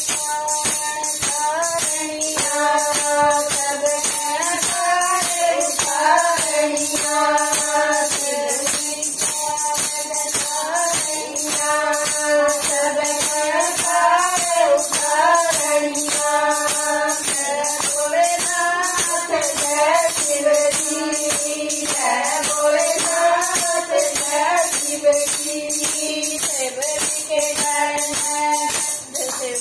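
Group of women singing a Haryanvi Shiva bhajan together, with hand clapping and a jingling percussion keeping a steady beat.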